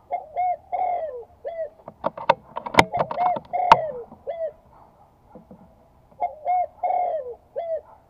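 Dove cooing in repeated phrases of short arching notes, a phrase near the start, more through the middle and another near the end. Between about two and four seconds in, several sharp clicks sound over the calls, the two around three and a half seconds being the loudest.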